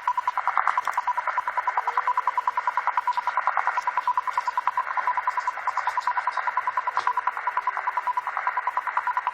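A shortwave time-signal transmission received on a WebSDR: a 1 kHz tone pulsed rapidly and evenly, about ten beeps a second, over receiver band noise. A faint whistle from a second carrier drifts slightly in pitch beneath it.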